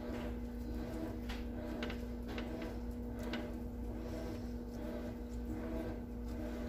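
Silicone basting brush dabbing barbecue sauce onto chicken wings on a wire cooling rack, making scattered soft taps and clicks, over a steady low hum.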